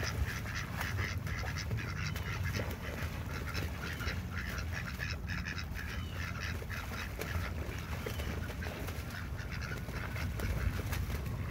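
Ducks quacking repeatedly over a steady low rumble, with water splashing as a Muscovy duck bathes and flaps in the pond.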